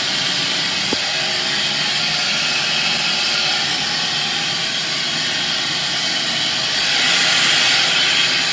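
Ridgid 16-gallon wet/dry shop vac running, a loud steady rush of air through its hose as the nozzle works over carpet. About seven seconds in the rushing grows louder and brighter.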